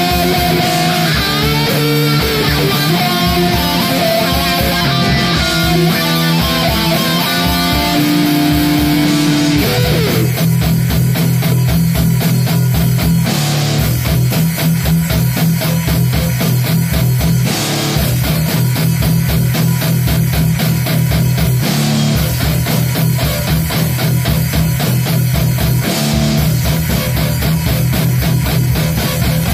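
Heavy metal music with guitars and bass: a melodic guitar line for about the first ten seconds, then a fast, driving riff with a steady low pulse takes over.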